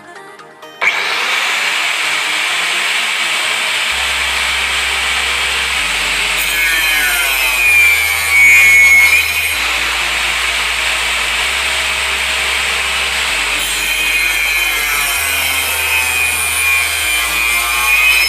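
Angle grinder in a cut-off stand cutting through stock, its disc noise starting abruptly about a second in and running steadily, louder for a moment in the middle.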